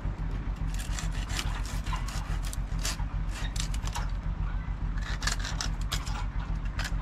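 Hand pruning saw cutting through a tree branch, with rasping strokes that come in uneven groups and pause between them.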